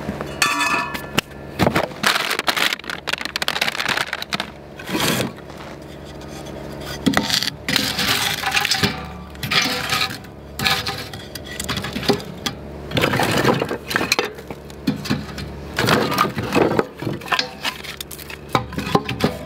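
Split kindling sticks being handled and dropped into a Solo Stove Ranger fire pit: irregular wooden knocks and clatter, with the sticks clinking against the metal walls.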